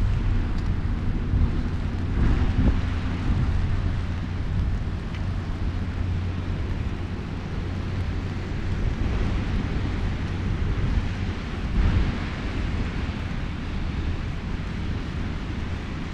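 Wind rumbling and gusting on the microphone outdoors in the rain, over a steady low hum that stops about eleven seconds in.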